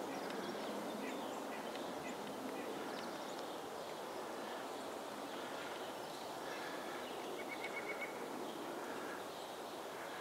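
Steady outdoor background noise with faint bird chirps scattered through it, including a quick run of about five high pips at around seven and a half seconds in.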